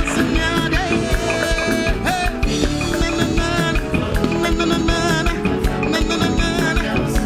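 Live band playing upbeat dance music: a steady, even drum beat under guitar and keyboard.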